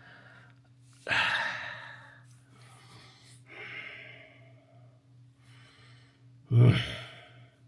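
A man sighing and breathing out heavily three times: a big exhale about a second in, a softer one near the middle, and a louder one with a bit of voice in it near the end. A faint steady low hum runs underneath.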